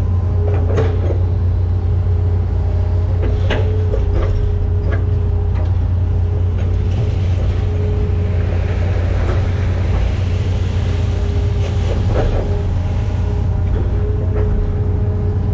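Hitachi Zaxis 210F-5G excavator heard from inside the cab: the diesel engine runs at a steady working drone under a steady whine while the machine swings and works its arm. A few sharp knocks come and go, loudest about a second and three and a half seconds in.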